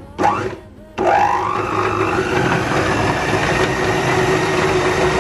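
Breville Power Mixer stand mixer running its beaters through thick churro dough. About a second in it gets much louder, its motor whine rising briefly and then holding steady.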